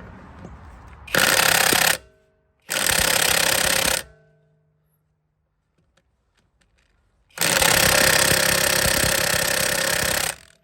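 Cordless impact wrench with a 21 mm socket hammering on a wheel lug nut in three bursts, the last about three seconds long, each ending with a short whine as the motor winds down. The wrench is struggling to break the tightly torqued nuts loose.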